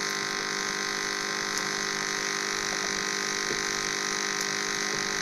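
A steady hum made of several held tones, with hiss over it, unchanging throughout.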